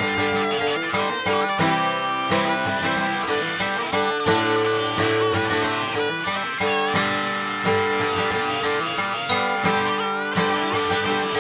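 Instrumental break of a country song: guitar-led band music with a steady beat and sliding lead notes, no singing.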